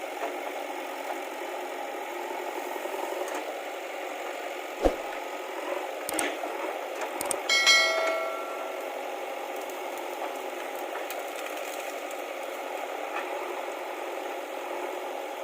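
JCB 3DX backhoe loader running with a steady noise, with a sharp knock about five seconds in, a few clicks, and then a ringing metal clang about eight seconds in that dies away over a second.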